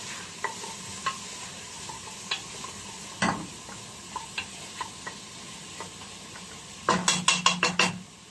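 Chopped onions sizzling in oil in a stainless steel pot, stirred with a wooden spoon that clicks and scrapes against the pot. About three seconds in there is one louder knock, and near the end a quick run of about seven knocks of the spoon against the pot.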